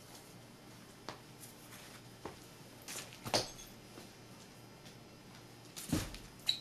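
A few scattered soft knocks and rustles of handling and movement over quiet room tone, the loudest about three and a half seconds in and again about six seconds in.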